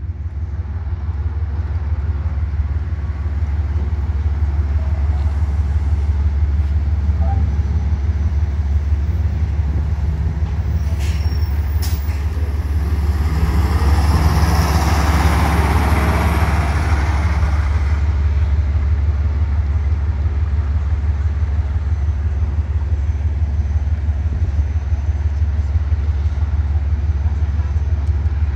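A diesel coach bus runs with a steady low rumble throughout. Its engine and tyre noise grows louder for a few seconds about halfway through as it turns past close by, then eases off.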